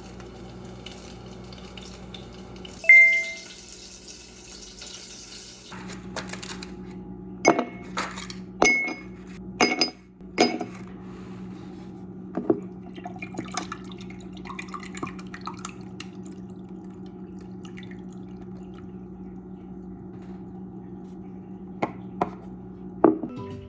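Dishes and kitchenware being handled. A sharp ringing clink comes about three seconds in, followed by a short hiss. A quick run of knocks and clatter follows a few seconds later, then lighter clicks, all over a steady low hum.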